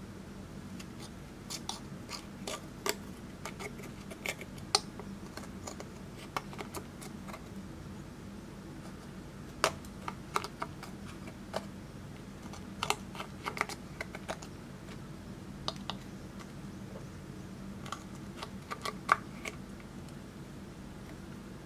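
Small metal tool scraping and prying pressed eyeshadow out of a plastic palette, giving irregular sharp clicks and taps as the powder cakes crack and crumble into a glass dish.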